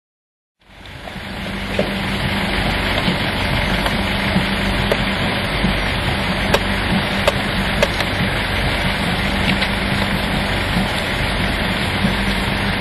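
Steady outdoor background noise, a low rumble and hiss with a faint steady hum, fading in about half a second in, with a few faint clicks.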